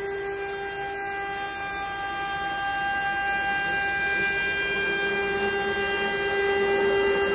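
Axiom CNC router's spindle running with a steady high whine as a surfacing bit makes a shallow 1/16-inch flattening pass across a wooden board, over a steady rushing hiss. It grows slightly louder near the end.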